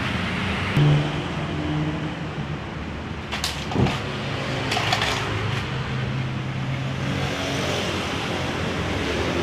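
A steady motor hum runs throughout, with a few short scrapes and rustles about three and a half to five seconds in, as vinyl sticker film is pressed onto a car body panel with a squeegee.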